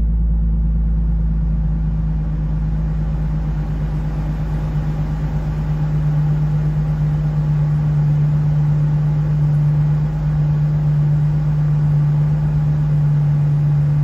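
Nissan 350Z's VQ35DE V6 idling with the climate-control fan running, a steady low hum inside the cabin. There is no clicking from the newly replaced recirculation door actuator, a sign the fix has cured the click.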